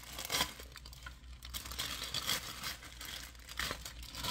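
Irregular crinkling and rustling as a bunch of fresh Italian parsley is handled.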